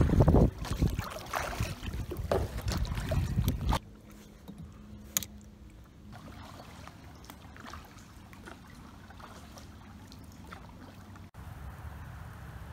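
Tandem kayak being paddled on a river: wind on the microphone and splashy paddle strokes at first, then, about four seconds in, an abrupt drop to quiet water noise with a few small knocks.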